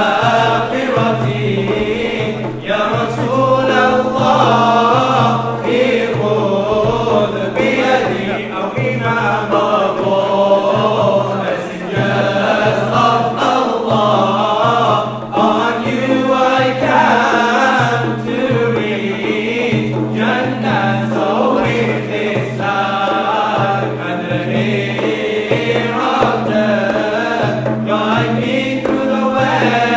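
Male nasheed ensemble singing a devotional Mawlid song in unison, accompanied by hand-played frame drums keeping a beat.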